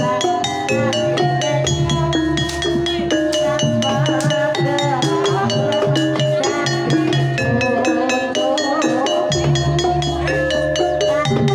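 Banyumasan gamelan ensemble playing a tayub gending: rapid, ringing mallet-struck keyed notes over drumming. A deep low layer comes in about two seconds in and drops out near nine seconds.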